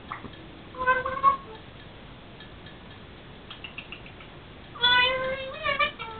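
African grey parrot calling: a short call about a second in, a few faint clicks near four seconds, then a longer call about five seconds in that wavers in pitch.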